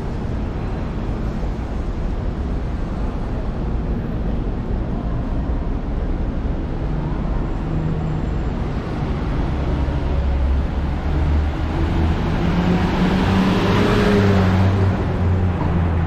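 Street traffic: a steady rumble of motor vehicles, with one vehicle's engine growing louder in the second half and loudest about fourteen seconds in as it comes close.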